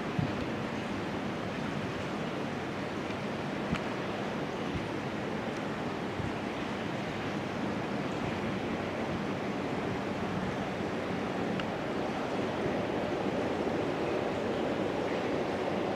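A train approaching from far down a long rail tunnel: a steady, rushing noise that slowly grows louder. There are a couple of faint knocks in the first few seconds.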